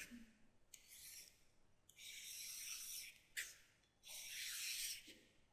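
Faint scratching of a stylus across a writing surface in four strokes: two short ones, then two longer, steady ones as straight table lines are drawn.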